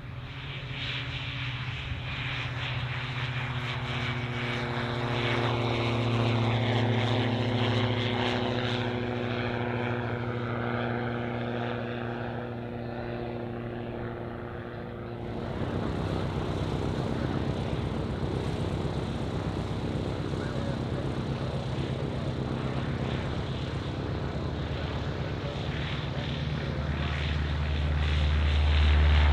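Light propeller aircraft's piston engine running; the steady engine note swells and fades over the first half. About halfway through it gives way to a rapidly pulsing engine note that grows louder toward the end.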